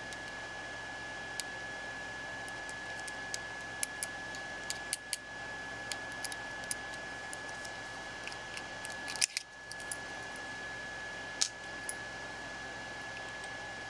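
Small irregular clicks and taps of a precision screwdriver working the screws out of an airsoft gas blowback rifle's trigger assembly, with the parts handled in the fingers; a louder cluster of clicks about nine seconds in. A steady background hiss with a faint high whine runs underneath.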